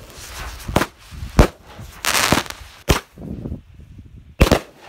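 Consumer fireworks going off: about five sharp bangs, the last two close together, with a loud hiss of sparks about two seconds in.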